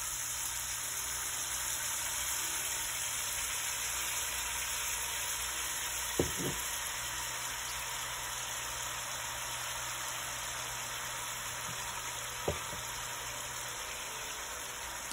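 Beef chuck roast with onion and garlic sizzling in a hot enameled cast-iron Dutch oven: a steady hiss, with two light knocks, one about six seconds in and one near twelve seconds.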